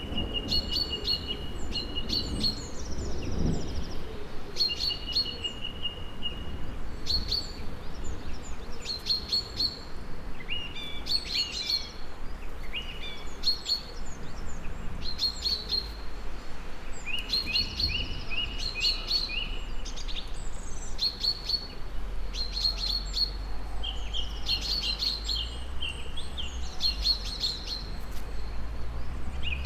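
Several songbirds chirping and singing in short repeated phrases and trills, over a low steady rumble that grows stronger in the second half.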